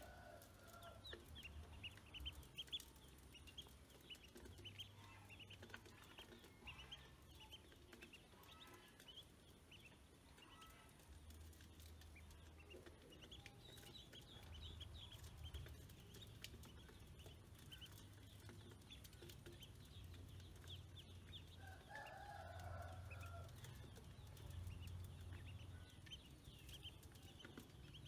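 A brood of ducklings peeping faintly and continuously in short, high chirps. About three quarters of the way through, one lower call stands out.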